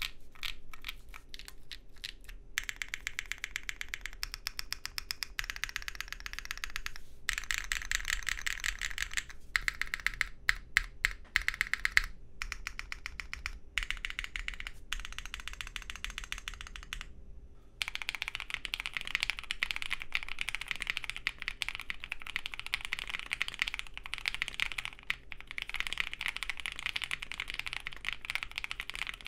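Typing on a Salvation custom mechanical keyboard (lubed, filmed RAED switches, FR4 plate, GMK keycaps), a stream of keystroke clacks in runs with short pauses. About seventeen seconds in, after a brief gap, it changes to typing on a plateless Studio Kestra NUE keyboard with lubed, filmed FFFF switches and CRP keycaps, a steadier run of keystrokes.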